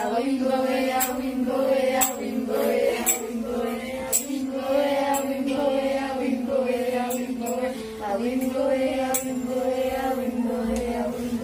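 A group of voices singing a slow, chant-like tune in unison, holding long notes, with a light sharp click about once a second.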